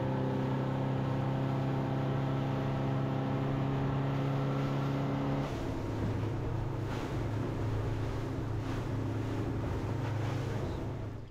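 Boat engine running steadily under way, with a rush of wind and water; about halfway through its pitch pattern changes and it runs on slightly quieter.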